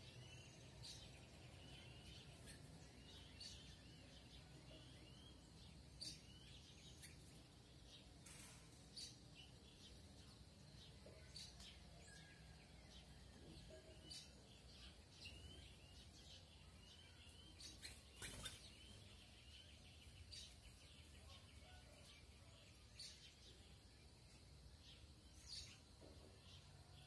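Tanagers (sanhaços) giving faint, short high chirps and call notes, scattered every second or so, over a steady low background rumble, with a few brief sharp clicks.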